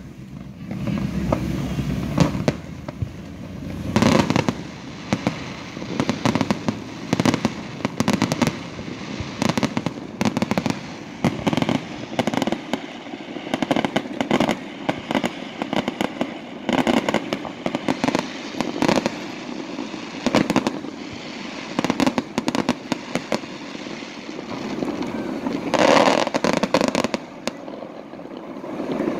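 Fireworks display: a dense run of pops and bangs from bursting shells, with heavier bursts about four seconds in and again near the end.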